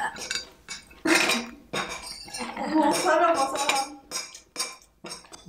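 Metal spoons and forks clinking and scraping against ceramic plates and bowls during a meal: a string of short, irregular clinks.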